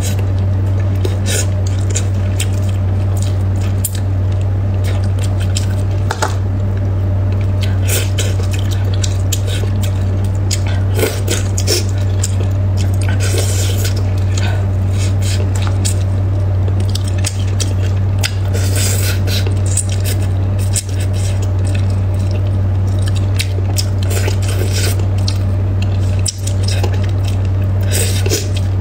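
Close-miked eating of braised fish: wet chewing and mouth sounds, with chopsticks clicking and scraping against the platter and a plastic cup. Short sharp clicks are scattered throughout over a steady low hum.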